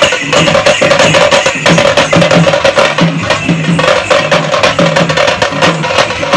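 Street drum band of stick-beaten drums playing a loud, fast festival rhythm, with dense sharp strokes over a low beat that repeats about twice a second.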